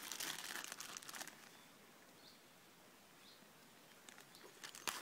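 Tin foil crinkling as it is handled for about a second and a half, then quieter, with a sharp click near the end.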